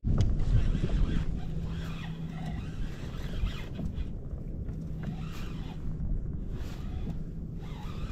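Wind rumbling on the microphone and water washing against a plastic fishing kayak's hull on open ocean, with a faint steady low hum.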